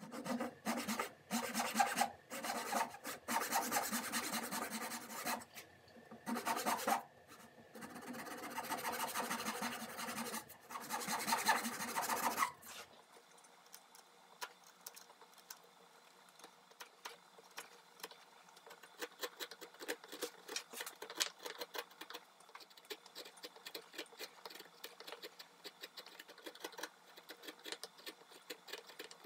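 A rasp scraping across the curved mahogany bracket foot in irregular strokes, some short and some held for a second or two. About twelve seconds in, this gives way to a quieter run of fine ticks as a carving gouge pares along the scroll line.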